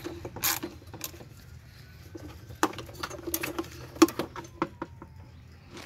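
A gloved hand rubbing and handling a ribbed plastic engine intake hose: light scratching with a few scattered clicks, over a faint low hum.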